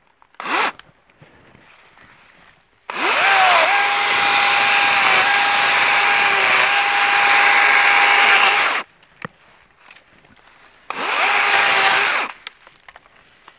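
DeWalt cordless battery chainsaw cutting bush honeysuckle stems in three bursts: a brief blip, a long run of about six seconds, then about a second and a half near the end. The electric motor whines up to speed at each start and stops between cuts.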